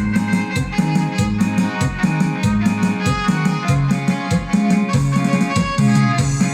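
Band playing a Mixtec dance song, with a melody over a steady, regular bass beat.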